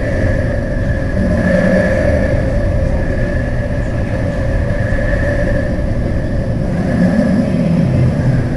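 A vehicle running: a steady low rumble with a steady whine above it that swells a little now and then.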